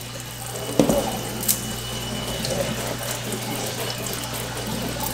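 Kitchen faucet running water over a croton's leaves into a stainless steel sink, rinsing neem oil off the foliage. There is a knock a little under a second in and a lighter click about half a second later.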